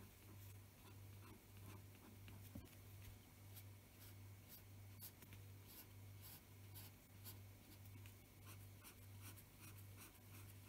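Felt-tip pen scratching faintly on paper in many short, quick strokes as rows of small diagonal lines are drawn. A faint low hum pulses about twice a second underneath.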